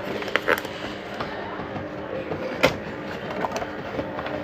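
Sharp clicks and handling noise as a ground lead is clipped onto a satellite receiver's circuit board: two close together near the start and the loudest about two and a half seconds in, over a steady faint hum.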